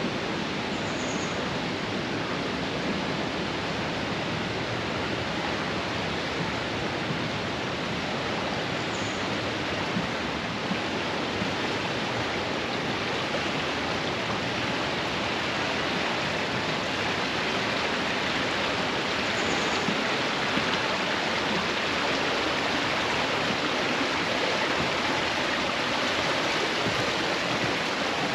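The Radovna river rushing steadily through the gorge: an unbroken noise of flowing water that grows a little louder in the second half.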